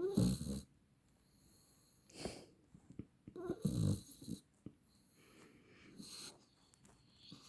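Labrador retriever snoring in its sleep: about four snoring breaths at uneven intervals, the loudest at the start and about halfway through.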